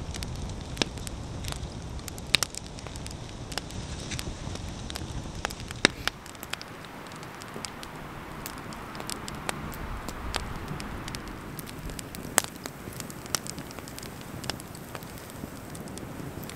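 Wood campfire of split logs crackling, with sharp pops scattered throughout; the loudest pop comes about six seconds in.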